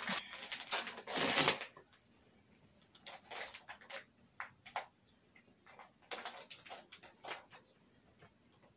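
Crinkling and crackling of a plastic Skittles Gummies pouch being tugged and worked by hand at its pull-to-open top, which will not tear open. The loudest burst of crinkling comes about a second in, followed by scattered crinkles and crackles.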